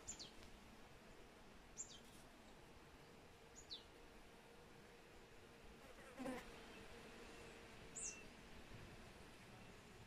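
Near silence: a faint steady hum, with four short high chirps that drop in pitch, spaced about two seconds apart, and one brief louder sound a little past six seconds in.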